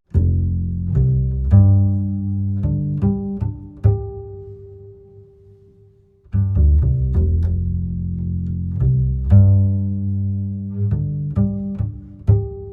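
Instrumental background music: a phrase of low, deep string-like notes with sharp attacks, ending on a held note and fading, then played again about six seconds in.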